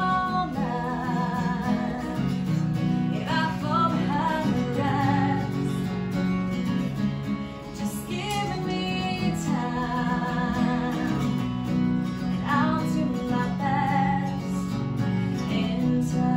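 A woman singing with vibrato on held notes, accompanied by her own acoustic guitar, played live.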